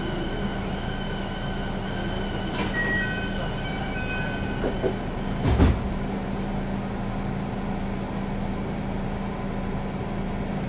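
JR West 221-series electric train standing at a platform, its equipment giving a steady hum with a few steady high tones. Short high beeps come about 3 to 4 seconds in, and a single heavy thump a little past halfway.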